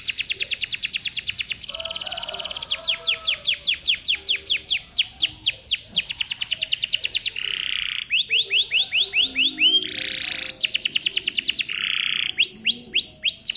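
Domestic canary singing a long, unbroken song: rapid trills of repeated notes that switch every second or two between fast rolls, series of sliding chirps, short buzzy rattles and a brief whistle.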